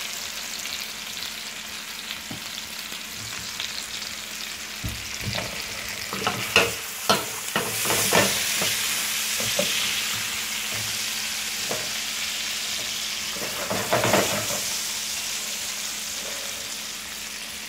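Chicken breasts frying in oil and butter in a nonstick pan: a steady sizzle, with a cluster of sharp knocks and pops about five to eight seconds in and another around fourteen seconds in.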